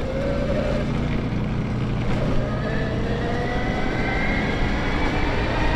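Bafang BBSHD mid-drive e-bike motor whining, its pitch rising steadily as the bike picks up speed, over a steady rush of wind and tyre noise. No creak comes from the freshly remounted motor.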